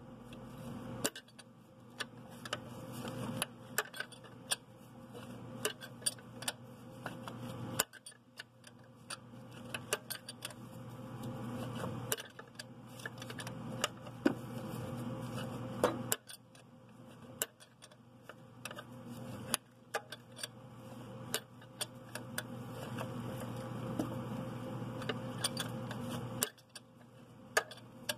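Irregular metallic clicking and ticking of a 17 mm wrench turning out a turbocharger mounting bolt, with rustling of plastic between the clicks.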